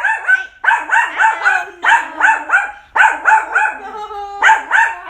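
Small Maltipoo dog barking rapidly and repeatedly in high, sharp barks, in quick runs of about three with brief pauses between. It is alarm barking, set off by someone reaching to touch the vacuum cleaner.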